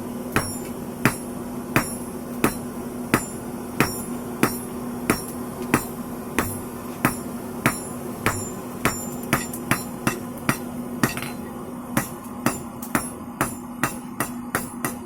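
Hand hammer striking steel rebar on an anvil in a steady rhythm, about three ringing blows every two seconds, quickening in the last few seconds. A steady low hum runs underneath.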